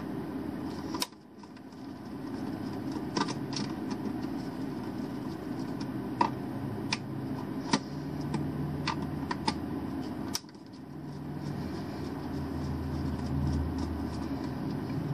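Screwdriver working the terminal screws of a hard-wired surge protector, heard as scattered small metallic clicks and scrapes. Under them runs a steady low hum that dips suddenly twice and comes back.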